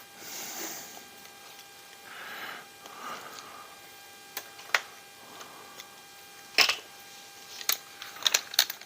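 Scattered sharp clicks and light taps of small hand tools and parts, with soft rustling, as the lower suspension links are worked off an RC rock crawler's chassis. The clicks are sparse at first and bunch together near the end.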